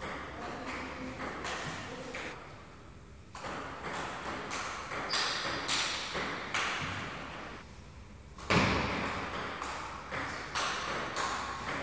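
Table tennis rally: the ball clicking off the bats and the table in quick, uneven alternation, each click ringing briefly in the hall. A louder thud about eight and a half seconds in.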